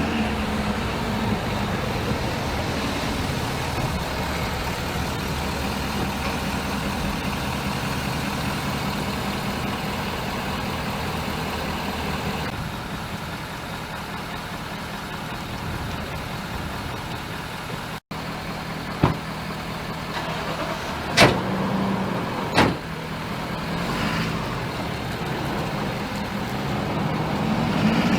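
A motor vehicle's engine idling steadily. The sound breaks off for an instant about two-thirds of the way through, and three sharp clicks or knocks follow within a few seconds.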